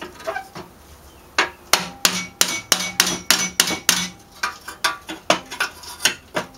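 Repeated sharp metal-on-metal tapping, about three strikes a second with a short ring after each, starting about a second and a half in. It is a tool striking the pipe sleeve on an old air-cooled Volkswagen Beetle muffler to work the sleeve loose.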